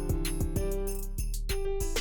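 Background music with a steady beat, sustained pitched notes over regular drum hits.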